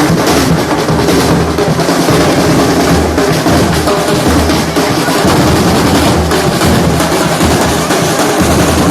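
Loud music with a heavy drum beat and bass.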